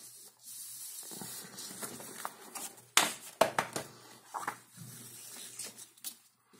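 Sheets of paper being handled and slid across a tabletop, rustling, with a cluster of sharp crinkles and taps about three seconds in.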